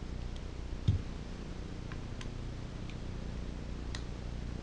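A few scattered, sharp metal clicks and taps as a small-engine carburetor and a socket wrench are handled, with a soft thump about a second in, over a steady low hum.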